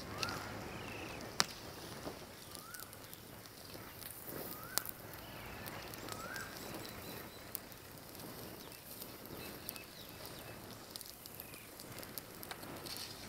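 Wood fire crackling, with scattered sharp pops (two of them loud) as cashew nuts roast in their shells in the flames. A bird gives a short rising call four times in the background.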